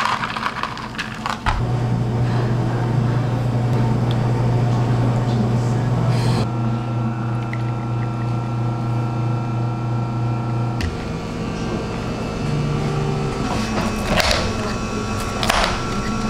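A steady low hum with held tones runs under milk being poured over ice in plastic cups. Near the end come short crackly bursts of plastic cups and dome lids being handled.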